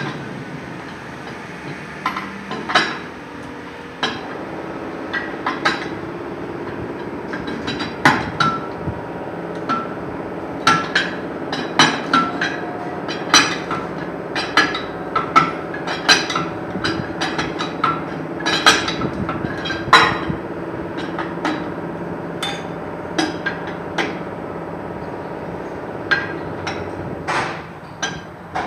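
Metal-on-metal hammering and tool clinks at a dump truck's rear wheel brake: dozens of sharp, irregular strikes, some ringing briefly, over a steady low hum.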